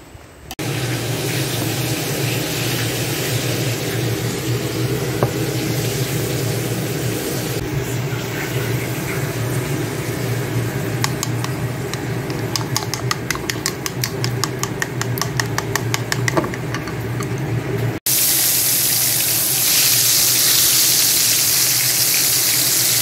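A steady hum and rushing noise, with rapid clicking of chopsticks beating eggs in a bowl for several seconds. After a sudden cut, tempeh deep-frying in hot oil gives a loud, steady sizzle.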